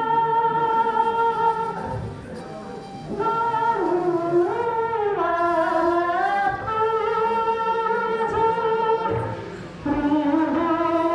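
Voices singing a slow song in long held notes, phrase after phrase, with short breaks about two seconds and ten seconds in.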